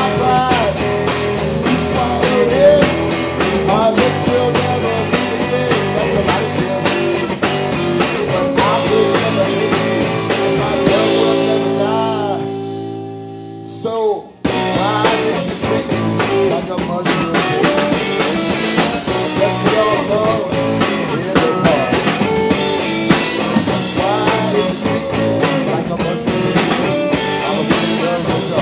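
Live blues-rock band playing: electric guitar, bass and drum kit, with a man singing. About halfway through the sound thins and fades to a held chord, cuts out for a moment, then the full band comes straight back in.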